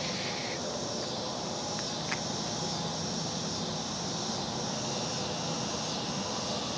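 Steady outdoor evening background: an even, low rumble of distant traffic or aircraft under a continuous high chirring of insects, with one faint click about two seconds in.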